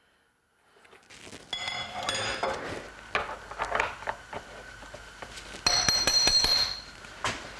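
Metal engine parts and tools clinking and ringing as they are handled. There are several sharp knocks, and the loudest clank, about six seconds in, rings on for most of a second.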